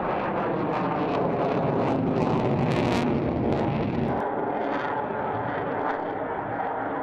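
Aircraft engine noise from an air-show flying display: a steady rushing sound that swells about a second in and eases after about four seconds.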